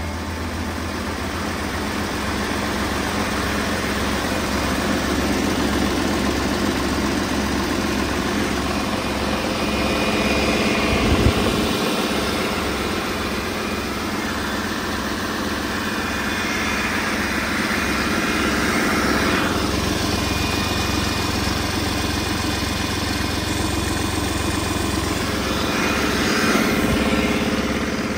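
2008 Mercedes-Benz MBE 926 inline-six diesel engine idling steadily, with an even low pulsing beat.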